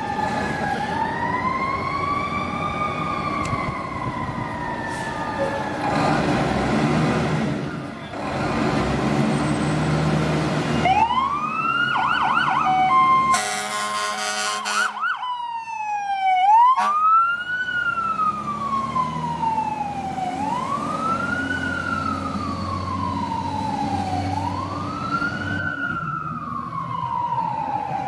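Fire engine sirens responding: a slow wail rising and falling, a heavy engine rumble as the rig pulls out, a blast of the air horn about halfway through, and a quick yelp. Then a steady wail, each cycle a quick rise and a slow fall, repeating about every four seconds.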